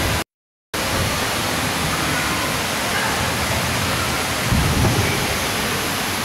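Steady rushing, splashing water. The sound cuts out completely for about half a second just after the start, and a low rumble swells briefly about four and a half seconds in.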